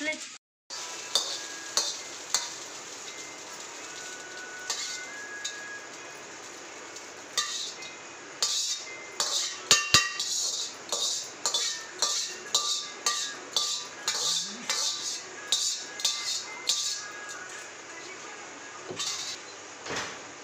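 Metal ladle clanking and scraping against an iron wok as fried rice is stir-fried, over a steady frying hiss. The strikes come in a quick run of about two a second through the middle, with a couple more clinks near the end.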